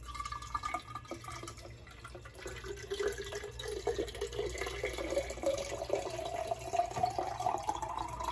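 Water poured from a plastic pitcher into a narrow-necked water bottle, the splashing and gurgling rising steadily in pitch as the bottle fills.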